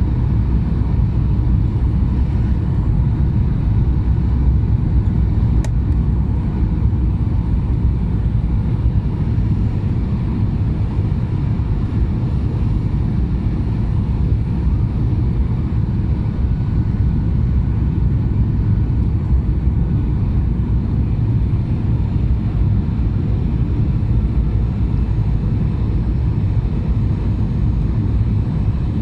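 Steady roar of engines and airflow inside the cabin of a Skymark Boeing 737-800 airliner in flight on approach, heard as a deep, even rumble with a faint steady whine above it.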